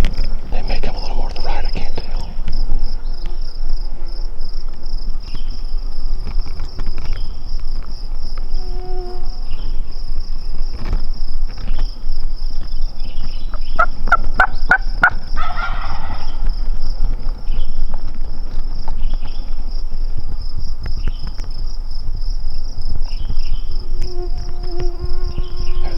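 A wild turkey gobbler gobbling once about halfway through, a quick rattling burst of notes trailing into a short rough call. A steady high-pitched insect buzz sounds under it.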